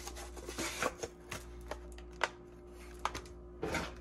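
Scattered light clicks and taps of hard plastic as a Dyson cleaner head's brush roll is fitted back into its housing, with a slightly longer rattle near the end.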